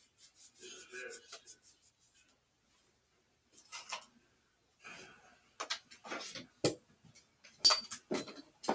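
A run of knocks and clatters of small objects being handled and moved about, sparse at first and coming thick and loud over the last three seconds, with a brief low murmur of a voice near the start.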